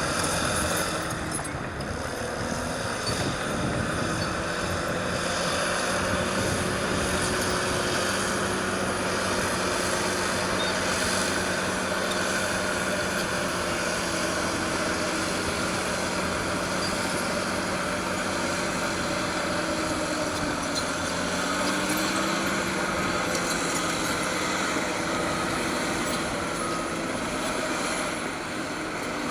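Caterpillar D6R crawler dozer's diesel engine working steadily under load while pushing dirt, its pitch rising and falling a few times as the revs change.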